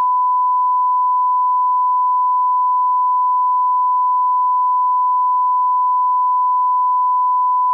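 A single steady, high-pitched electronic beep: one pure, unbroken tone held at an even, loud level.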